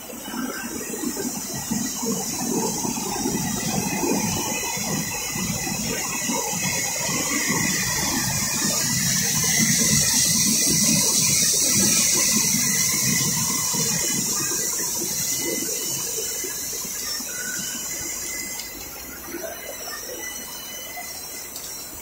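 Machinery of a running EPDM rubber extrusion and microwave vulcanization line: a steady high hiss, loudest about halfway through and easing toward the end, over a low clattering rumble.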